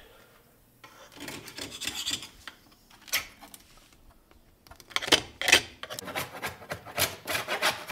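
A hand tool scraping at a broken pressed-wood drawer side in a series of short strokes, clearing away broken material at the joint; a first spell of scraping a second or two in, a single stroke near the middle, then a quick run of strokes over the last three seconds.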